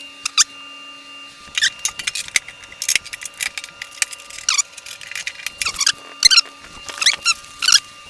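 Loose bolts, nuts and steel plow parts clinking and squeaking as they are handled and fitted together by hand, in a string of short, irregular clicks and squeaks.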